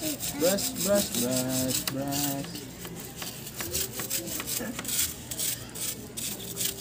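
A thin metal strip is pushed back and forth through the tubes of a car radiator core to clear them. It makes quick, repeated scraping strokes of metal rubbing on metal.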